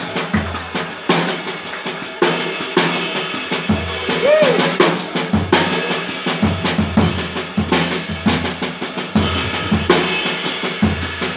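Jazz drum kit played busily with many quick snare, rim and cymbal strokes, with low double bass notes sounding underneath.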